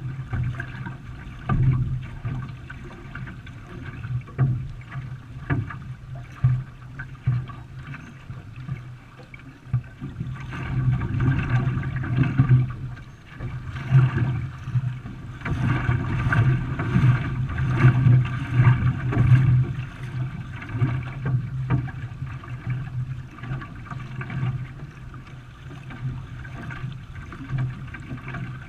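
Racing canoe being paddled: water splashing and rushing along the hull with each stroke. The strokes are loudest and most regular, about two a second, around the middle.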